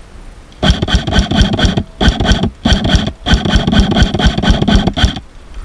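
Airsoft rifle firing close by in rapid full-auto bursts: four bursts, the first and last longest, with short breaks between them.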